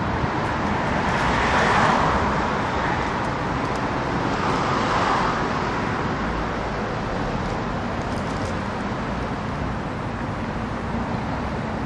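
Steady city road traffic noise, swelling twice as vehicles pass, about two seconds in and again around five seconds.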